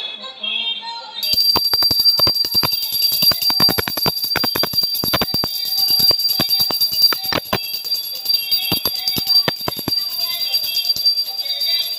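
Brass pooja hand bell rung in rapid, uneven strikes from about a second in, over devotional music.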